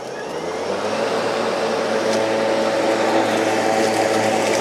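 Stihl RMA 765 V battery-powered commercial mower on full power, its motor and dual blades spinning up over the first second and then running with a steady hum as it is pushed across the lawn, cutting grass into its collector.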